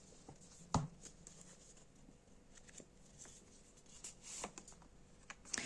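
Tarot cards being handled on a table: a sharp click a little under a second in, then a few faint clicks and soft rustles.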